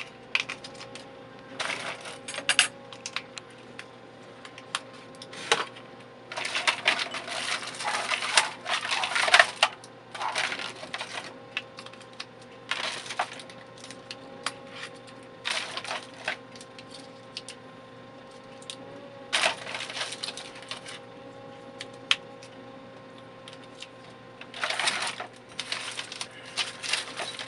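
AA batteries being loaded into a plastic battery holder for a radio-control transmitter. They click and clatter in irregular bursts of rattling and snapping, with short pauses between.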